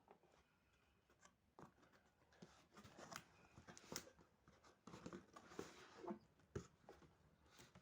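Faint handling of packaging as a box is unpacked: irregular rustles, light clicks and short scrapes, with a sharper tap about four seconds in and again near six and a half seconds.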